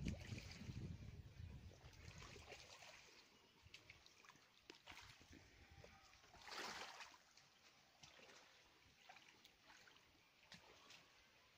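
Faint lapping of small waves on a lake's stony shore, with scattered light clicks and one louder wash about six and a half seconds in.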